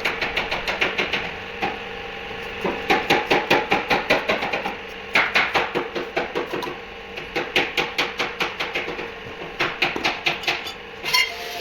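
Runs of sharp clicks or knocks, about six a second, coming in bursts of a second or two with short pauses between them.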